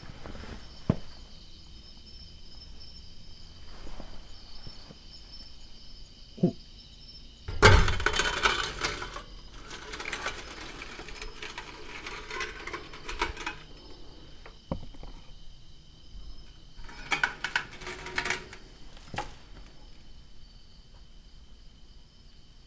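Handling noise from a person clambering through a doorway: rustling, scraping and a few sharp knocks, loudest about eight seconds in and again near eighteen seconds, over a steady high insect trill.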